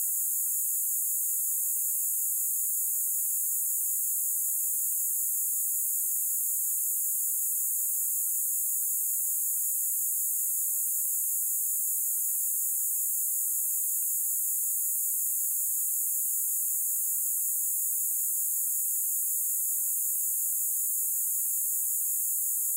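Steady high-pitched hiss, perfectly even and unchanging, with nothing lower in pitch beneath it.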